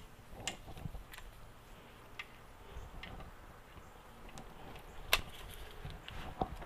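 Scattered sharp clicks and taps of hand tools on an engine's bolts during torquing, spaced irregularly, with one louder click about five seconds in.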